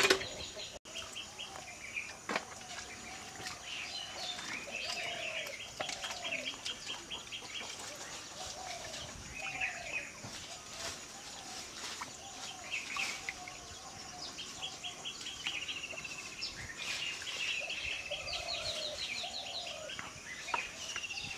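Birds chirping and calling: rapid high trills alongside repeated lower arched calls, with a few light clinks.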